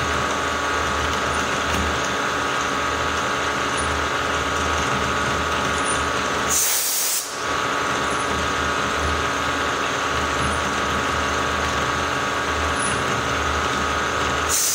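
Milling machine's 3/8-inch end mill cutting a slot through half-inch steel plate on one of several passes: a steady machining whine over a pulsing low rumble. A short hiss breaks in about seven seconds in and again near the end.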